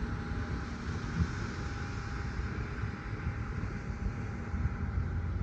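Wind buffeting the microphone: a low, uneven rumble, with a brief thump about a second in.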